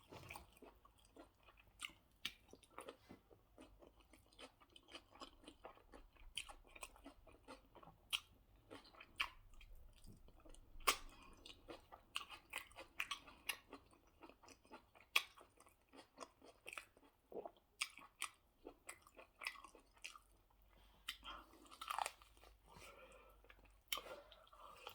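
Close-up mouth sounds of a person eating rice and goat stew: chewing, lip smacking and crunching, a steady run of sharp irregular clicks.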